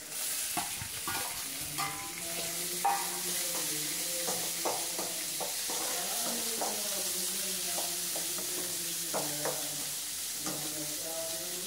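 Chopped vegetables (beans, carrot, capsicum, small onion) sizzling as they fry in a hot metal kadai, stirred with a spatula that scrapes and taps against the pan. The sizzle starts as they are tipped into the oil.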